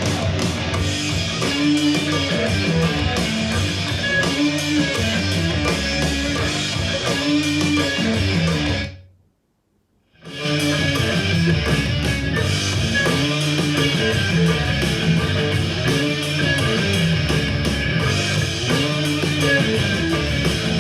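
Rock music with guitar played back through a portable Bluetooth speaker for a sound test. The music cuts out about nine seconds in and starts again about a second and a half later.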